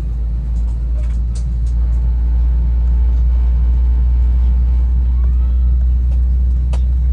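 Steady low rumble of an Airbus A321 cabin on the ground, growing a little louder over the first couple of seconds, with a few faint clicks.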